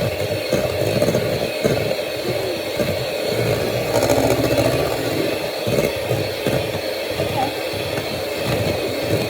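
Electric hand mixer running steadily, its beaters whipping egg whites in a bowl toward stiff peaks.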